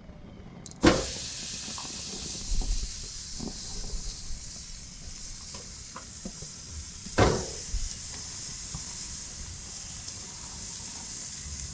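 Meat sizzling on a hot grill, a steady hiss that starts suddenly about a second in as the meat is laid on. A second loud sizzling burst about seven seconds in, as another piece goes down.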